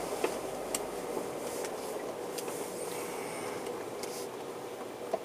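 Car driving slowly, with steady engine and road noise and a few light clicks.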